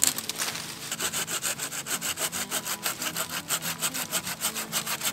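Bahco Laplander folding saw cutting through a thin wooden branch with quick, even back-and-forth strokes, about four to five a second.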